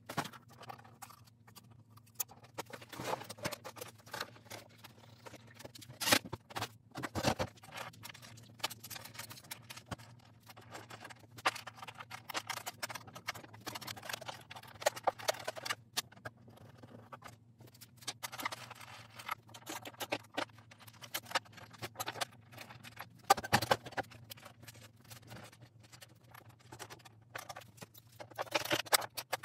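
Scattered knocks, taps and clatter of hands working on a plywood flip-top tool cart and its metal hardware, with a few louder knocks, over a steady low hum.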